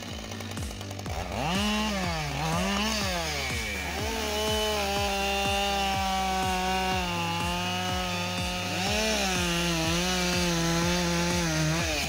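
Husqvarna 572XP two-stroke chainsaw revving up and down twice, then held at full throttle as it cuts through a log. The pitch dips briefly about three-quarters of the way through, then the saw comes off the cut near the end.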